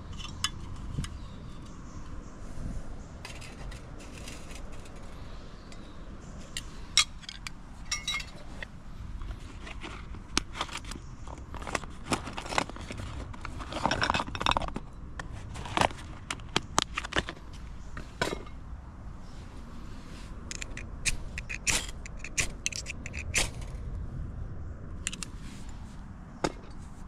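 Handling noises: irregular scrapes, clicks and clinks, busiest about ten to eighteen seconds in, over a low steady background.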